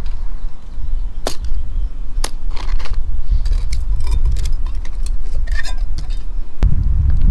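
Sharp metallic clinks and scrapes of camp cook gear being handled, a couple of single clicks and then a cluster of small ticks, over a steady rumble of wind on the microphone that swells near the end.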